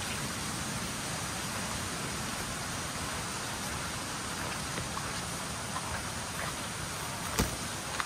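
Steady rushing of water from the waterfall, an even hiss with no rhythm. One sharp click or knock near the end.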